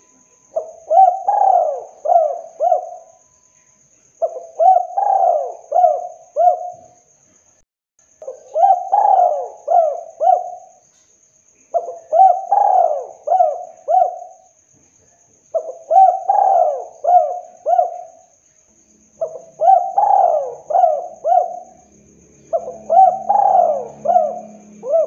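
Spotted dove (tekukur) singing its 'kuk 2' cooing song: seven phrases of four or five coos each, one phrase every three to four seconds.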